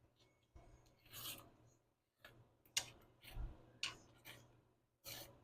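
A spoon or spatula stirring and scraping thick baked beans in a cast iron skillet: a series of soft, uneven rasping strokes, about one every half second.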